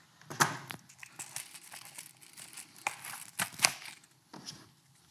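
Plastic packaging crinkling and rustling as a leather magazine carrier is handled, with a few sharp clicks.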